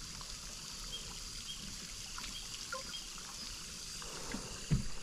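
Faint outdoor ambience: a steady low hiss with a few faint short high chirps.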